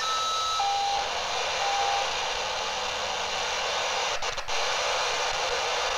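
Shortwave receiver hiss from a Gqrx software-defined radio demodulating upper sideband around 14.5 MHz while being tuned. In the first two seconds there are several short steady whistles at different pitches, and about four seconds in there are a few faint clicks.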